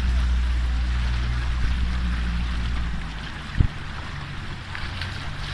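Motorboat engine running steadily under way, with water rushing and splashing past the hull. The low rumble eases about three seconds in, and a single low thump follows shortly after.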